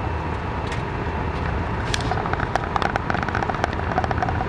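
Car running with a steady low road rumble, heard from inside the cabin, with the turn-signal indicator ticking.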